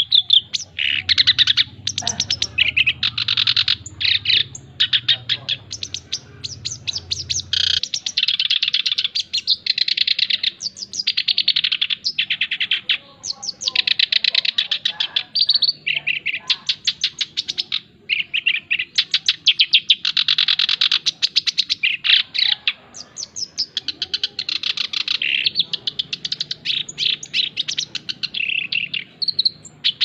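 Male black-browed reed warbler (kerak basi alis hitam) in full song: long phrases of fast, rapidly repeated chattering notes, one to a few seconds each, broken by short pauses and running on without letup.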